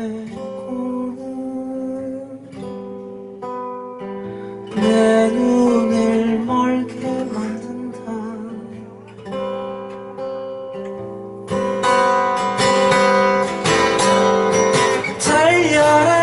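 A man singing live over his own acoustic guitar, which is strummed and picked. The playing grows louder and fuller about eleven seconds in.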